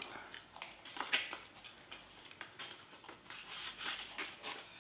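Paper and plastic wrapping rustling and crinkling as items are handled and pulled out of a cardboard box. It comes as short, scratchy rustles, the loudest about a second in.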